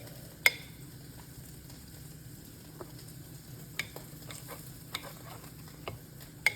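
A kitchen knife clicking sharply against a cutting board a handful of times while the cooked steak is sliced, over a faint steady hiss.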